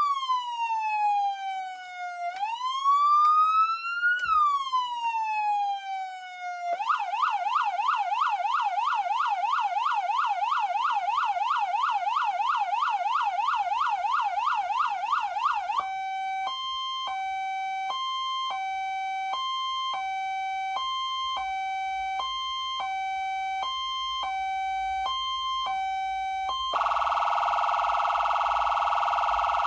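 CODE3 H2Covert electronic siren stepping through its tones: a slow wail rising and falling, then from about seven seconds a fast yelp, then from about sixteen seconds a two-tone hi-lo alternating between two notes, and from about twenty-seven seconds a very fast warble.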